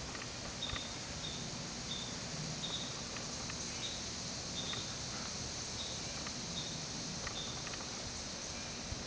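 Outdoor insect chorus: a steady high hiss with a short high chirp repeating about every two-thirds of a second.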